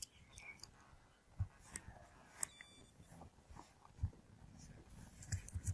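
Faint computer mouse clicks: a few single clicks spread apart, then several in quick succession near the end.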